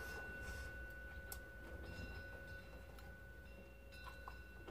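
Quiet room tone with a faint steady high whine, and a few faint clicks of metal chopsticks picking food from a frying pan.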